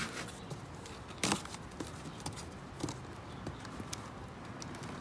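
A small cardboard box being handled while its packing tape is slit with a box cutter: scattered light knocks and scrapes, the loudest about a second in.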